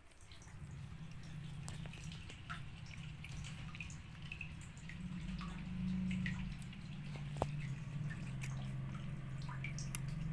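Cats lapping milk from a small bottle-cap lid, a scatter of small wet clicks and drips. Under them runs a low, steady rumble, the loudest part of the sound.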